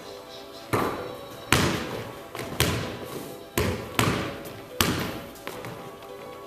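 Basketball bouncing on a wooden gym floor about six times, unevenly spaced, each bounce echoing through the large hall; faint music runs underneath.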